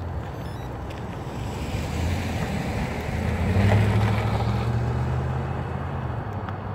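A car driving past on the road, its engine and tyre noise swelling to a peak about four seconds in and then fading away, over a steady rumble.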